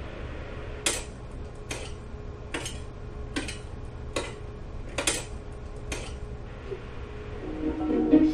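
Recorded sound effect of a hammer striking stone: seven sharp strikes, evenly spaced a little under a second apart, over a faint steady hum. Near the end, plucked-string folk music fades in.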